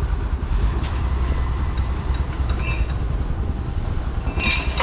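Diesel engine of a heavy construction machine running, a deep steady rumble, with faint scattered metallic ticks.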